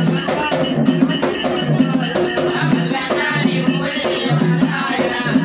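Double-headed barrel drum beaten in a quick, steady rhythm, with small hand cymbals jingling over it. This is the accompaniment to a devotional folk song.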